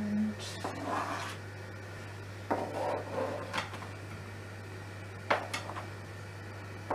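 A kitchen knife scraping cut tomato off a plastic chopping board onto plates, with a few sharp clicks of the knife against board and plate, over a steady low hum.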